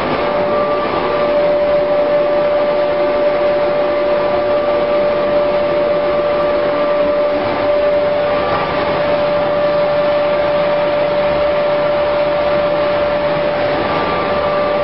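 Steady drone of sawdust rotary dryer plant machinery running, with a constant hum and a fainter, higher tone that drops out and returns a few times.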